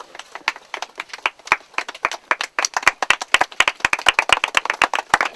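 A small group of people clapping, a few scattered claps at first that grow into steady applause about halfway through.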